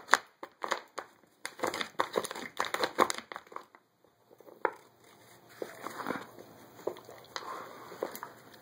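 A dog pawing and nosing at a wooden puzzle feeder, its wooden pieces clicking, knocking and scraping in quick irregular bursts, with a short pause a little before halfway.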